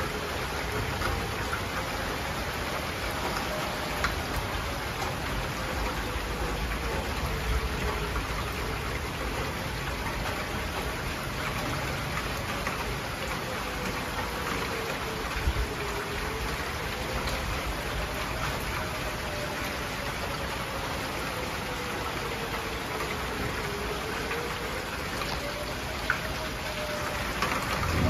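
Heavy rain pouring steadily. Under it, a Whelen 2904 outdoor warning siren wails faintly on its wail signal, its pitch slowly rising and falling over and over, sounding a tornado warning. A rumble of thunder starts right at the end.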